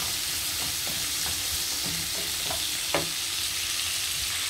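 Sliced onion, celery and red bell pepper sizzling as they sauté in a frying pan, stirred with a wooden spatula that knocks and scrapes against the pan now and then, most sharply about three seconds in.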